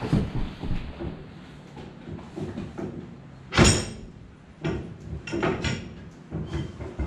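Wool press hydraulic ram, a steel rod, being pushed and worked into its cylinder by hand, tight on its new O-rings: irregular knocks and scraping clunks, with one sharp metallic clank that rings about three and a half seconds in, followed by a run of smaller knocks.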